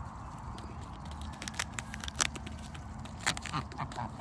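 Irregular sharp taps and clicks of geese pecking with their bills, apparently at the closed birdseed container and the seed around it.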